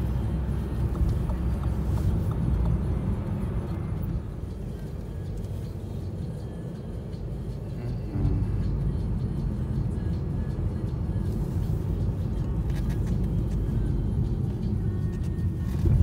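Lada Vesta Cross with the 1.8 engine and automated manual gearbox driving in city traffic, heard from inside the cabin as a steady low engine and road rumble. It eases off for a few seconds and then gets louder again suddenly about eight seconds in.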